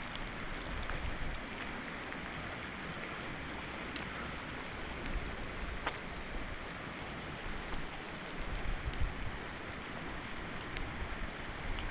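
Steady rushing hiss of wind and rain outdoors, with a few sharp ticks about four and six seconds in.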